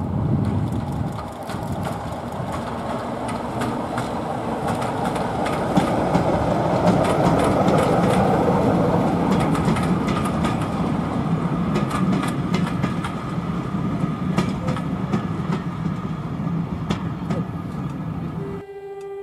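Diesel locomotive working a passenger train past, its engine running under power, followed by the coaches rolling by with a run of wheel clicks over the rail joints. Near the end the train sound cuts off and a locomotive horn begins a single held note.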